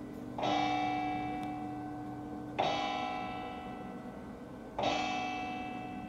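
Church tower bell struck three times at an even pace, about two seconds apart, each stroke ringing out with a long fading hum.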